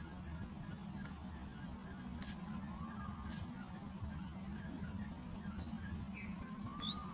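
Small bird giving five short, sharply rising squeaky chirps, spaced about a second or more apart.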